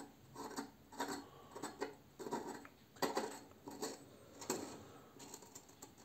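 Metal clicking and scraping in short, irregular bursts as a hand turns and seats the parts on top of a single-lever basin mixer whose handle is off. The loudest bursts come about three seconds in and again about a second and a half later.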